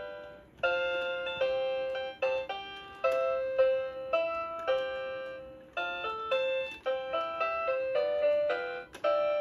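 Santa-themed toy carousel playing its built-in melody: a tune of piano-like struck notes, a few a second, with a brief break about half a second in.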